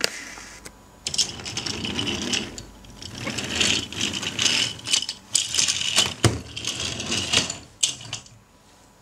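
Plastic Mega Bloks toy pieces and a toy Thomas engine being handled and moved along a plastic track, rattling and clicking in irregular bursts with a few sharp clicks.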